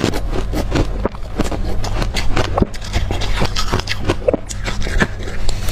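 Hard crushed ice from a deep freezer being chewed close up: dense, irregular crunches, many to the second.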